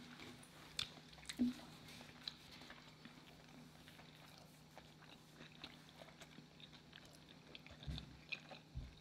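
Close, quiet eating sounds: a bite into a soft bun filled with shredded beef, cheese sauce and peppers, then chewing with small wet mouth clicks, over a faint steady hum.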